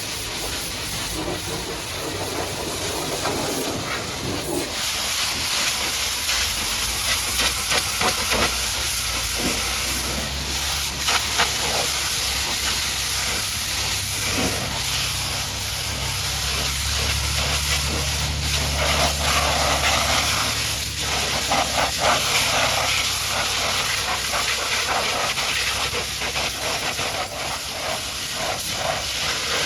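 High-pressure washer jet spraying water onto a muddy truck: a steady hiss, with a low hum underneath that grows stronger for a few seconds midway.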